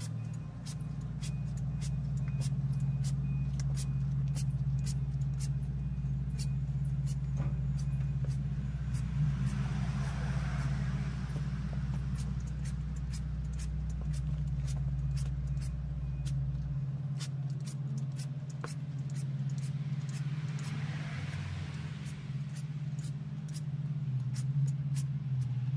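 Rapid repeated pumps of a trigger spray bottle spraying oil over the grill's metal interior, heard as quick ticks and spritzes. Under them runs the steady low rumble of a vehicle engine, with reversing beeps in the first few seconds; the deepest part of the rumble stops about two-thirds of the way through.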